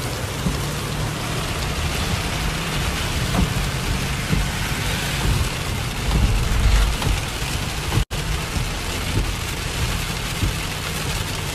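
Rain on a moving car and its tyres hissing on the wet road, over the car's steady low hum. A deep low rumble swells about six seconds in, and the sound cuts out for an instant about eight seconds in.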